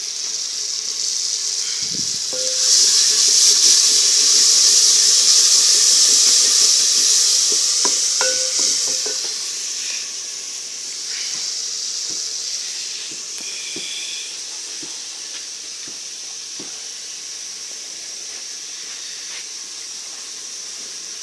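Hissing and sizzling of food cooking in a pot over a wood fire. It swells loud about two seconds in and eases off to a lower steady hiss after about nine seconds, with scattered light knocks and crackles.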